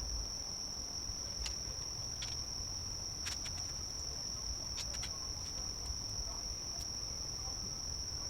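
Steady, high-pitched chorus of insects that runs unbroken, with a few faint scattered clicks.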